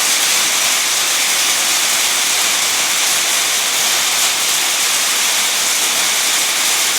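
Heavy rain and hail falling in a downpour, a loud, steady hiss.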